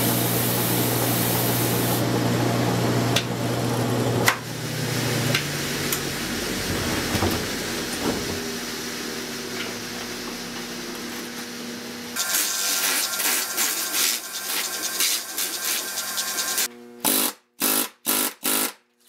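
Woodworking band saw running and cutting a block of wood, then switched off about four seconds in, its motor humming down. After that, short sharp strokes of hand-carving on wood, coming in quick bursts near the end.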